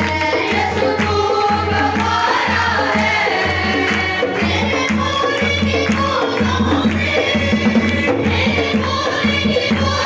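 Urdu Christian worship song (masihi geet) sung by a boy and two women into microphones, over a steady low drum beat.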